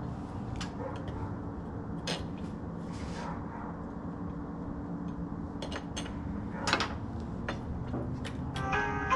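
Scattered metallic clicks and clinks of hand tools and loose parts while engine components are being unbolted, with one louder clank about two-thirds of the way in.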